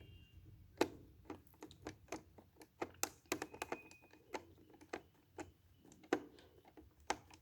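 Light, irregular clicks and ticks, about two or three a second, from a screwdriver tightening the screws of a Eufy RoboVac G10's battery cover and the plastic parts being handled.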